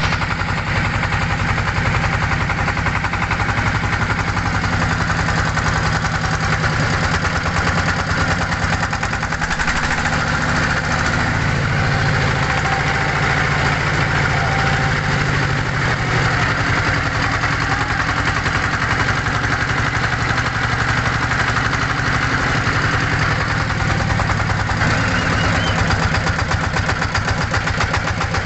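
Engine of a wooden river passenger boat running steadily, with a fast, even beat.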